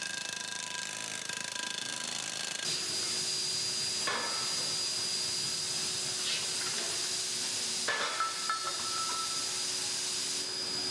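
Steady factory machine noise: a hiss with a constant hum, which shifts about a third of the way in to a higher steady whine, with a sharp knock about four seconds in and another about eight seconds in.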